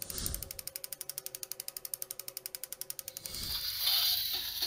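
Rapid, even mechanical clicking like a ratchet or turning gears, about twelve clicks a second, with a short whoosh at the start. It stops about three seconds in and gives way to a louder scraping, handling noise.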